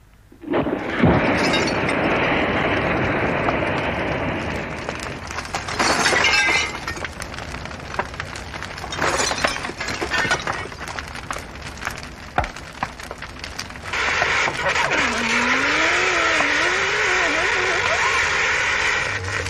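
A pile of old scrap televisions going up in flames: a sudden loud rush of fire about a second in, then burning with sharp cracks and bursts of shattering glass. A steady rush with a wavering tone returns near the end.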